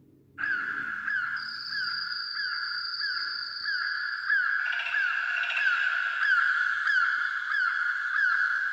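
Electronic music built on synthesized, Game Boy-like bird chirps: a quick falling blip repeating about every 0.6 s over a steady tone, setting in just after the start, with further layers joining about halfway.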